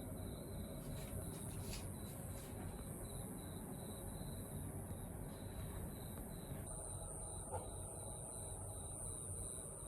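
Ogasawara conehead katydid (Euconocephalus nasutus) singing a continuous, very high-pitched buzz that grows louder about two-thirds of the way through. Until then a fainter insect chirps in the background about twice a second.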